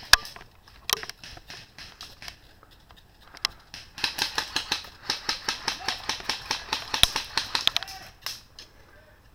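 Airsoft guns firing sharp single cracks a few times. From about four seconds in there is a run of rapid clicking and rustling that lasts about four seconds.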